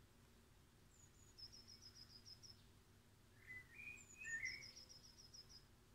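Faint songbird song: two high, rapid trills of repeated notes, one about a second in and one about four seconds in, each opened by a couple of thin higher notes. Between them comes a short, lower warbling phrase.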